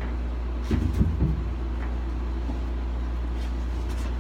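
Steady low machine hum, with a few bumps and rustles about a second in as things are handled.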